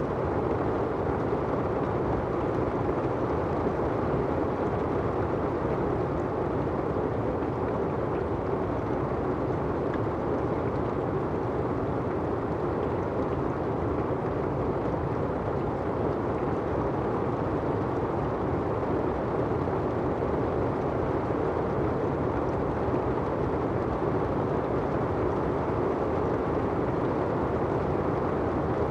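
Steady rain falling on an umbrella and on asphalt: an even, dense hiss with no single drops standing out.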